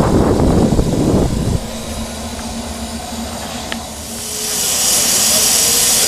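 Narrow-gauge steam locomotive: a loud, pulsing low rumble that cuts off after about a second and a half, then a steam hiss that swells from about four seconds in and holds as steam vents in a cloud low beside the engine.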